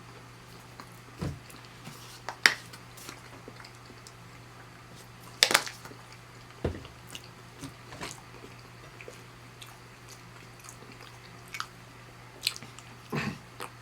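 Close-miked chewing and biting of a plant-based chicken patty and wings, with scattered wet mouth clicks and smacks; the sharpest ones come about two and a half and five and a half seconds in and again just before the end.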